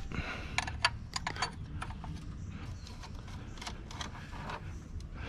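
Irregular light clicks and taps of hand tools being handled at work on the truck, most of them in the first second and a half, over a low steady rumble.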